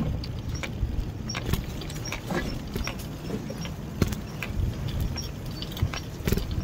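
Bicycle rattling and clicking as it rolls along a concrete sidewalk: irregular sharp knocks and jingles, several a second, over a steady low rumble.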